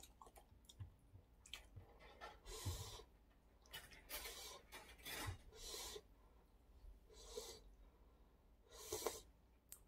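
Quiet eating sounds of a person eating with chopsticks: soft chewing and a short breathy puff about every second and a half.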